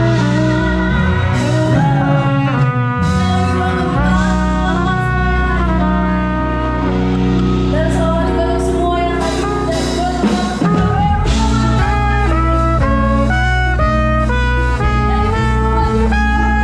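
Live band music with a horn section: trumpet and saxophone play a melodic line of stepped, held notes over a steady bass and drums, the trumpet close at hand.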